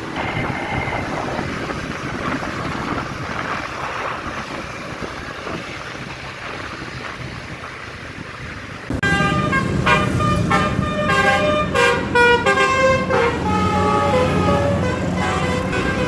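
Steady road and engine noise, then about nine seconds in a bus's basuri musical air horn starts, loudly playing a tune of quick, changing notes.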